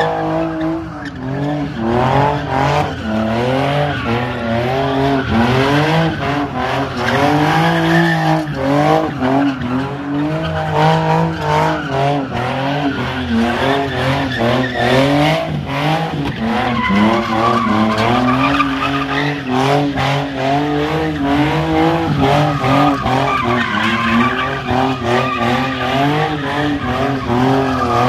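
Nissan 350Z's V6 engine revving hard, its pitch rising and falling over and over as the car does donuts. The rear tyres squeal and spin against the pavement throughout.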